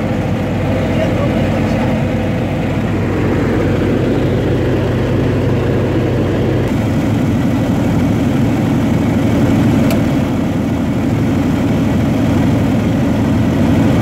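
Radial engine and propeller of a PZL-104 Wilga 35A light aircraft running steadily, heard inside the cockpit as it comes in to land on a grass airfield. The engine note changes about halfway through.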